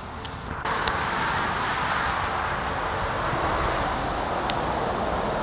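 Steady traffic noise from the A55 dual carriageway overhead, coming in suddenly about half a second in, with a few light clicks over it.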